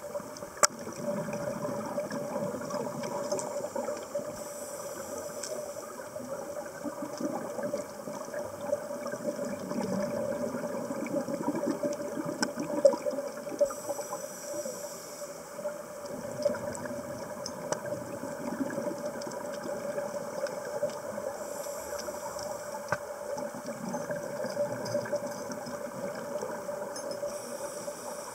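Underwater sound of a scuba diver breathing through a regulator: a short hiss on each breath in and a stretch of bubbling on each breath out, repeating about every eight seconds over a steady underwater hum.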